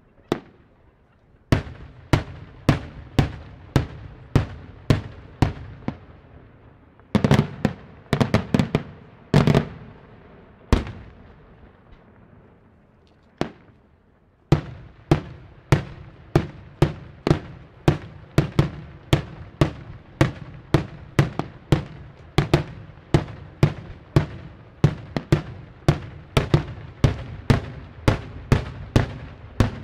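Daytime fireworks: aerial shells bursting in the sky as a string of loud bangs, about two a second, each followed by a short echoing tail. A denser cluster of bangs comes about a quarter of the way in, then a short lull with a couple of single bangs, then a long steady run picks up about halfway through.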